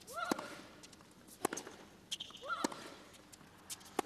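Tennis ball struck by rackets in a rally, four sharp hits about a second and a quarter apart, with a short grunt from the same player on the first and third shots.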